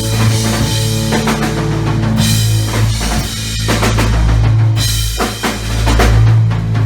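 Live free-form rock trio playing heavy drums over a sustained low drone, with loud crashes about two and five seconds in.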